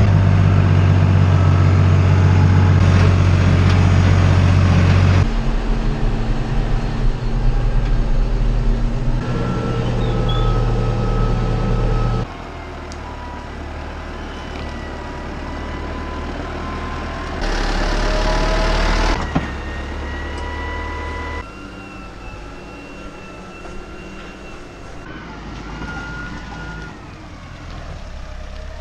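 Tractor engines working, in a run of short clips that cut abruptly from one to the next, loudest in the first five seconds; some clips carry a steady high whine over the engine.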